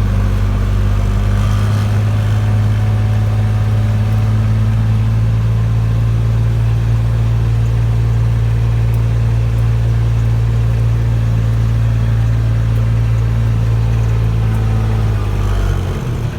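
Motor vehicle engine running at a steady speed, a low hum that holds one pitch, easing off near the end.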